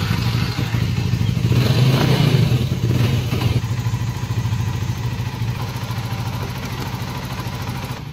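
Motorcycle engine running, loudest about two seconds in, then settling to a steady idle.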